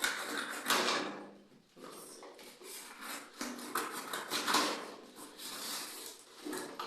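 A delivery package being opened by hand: irregular rustling and crinkling of its wrapping, in several separate swishes.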